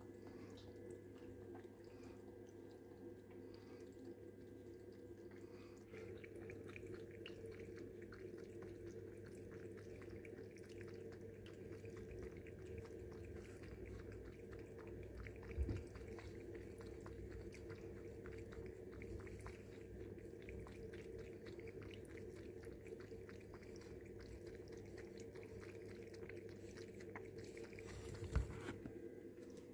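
A cat lapping water from a steel bowl: a fast, faint run of wet ticks over a steady low hum. A thump about halfway through and another near the end.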